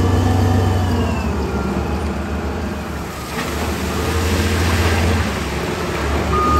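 Wheel loader engine running, with a whine that falls in pitch over the first two seconds.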